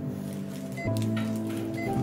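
Background music: sustained chords that change about a second in, with a short high tick roughly once a second.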